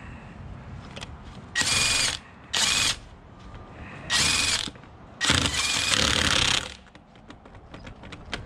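Cordless impact wrench run in four short bursts on a car wheel's lug nuts, the last burst the longest.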